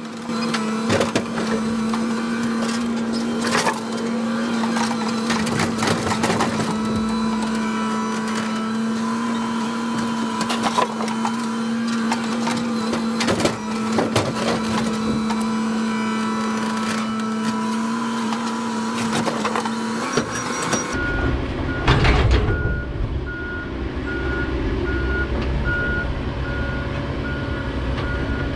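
A John Deere rail-mounted material handler working a wooden railroad tie pile: its engine and hydraulics run with a steady drone, broken by repeated clunks and knocks as the grapple handles and drops ties. About three-quarters of the way in the drone gives way to a low rumble and a reversing beeper starts beeping steadily.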